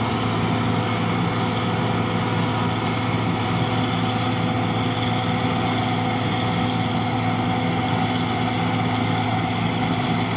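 John Deere 2258 combine harvester running steadily at working speed, its engine drone mixed with the even hiss and rattle of the threshing and cutting machinery.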